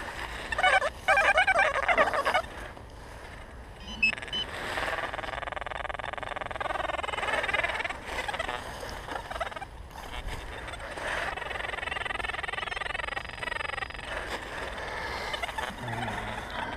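Handheld metal-detecting pinpointer sounding a loud warbling tone as it is probed in a dug hole, strongest during the first couple of seconds, then wavering on and off, with short knocks from the digging.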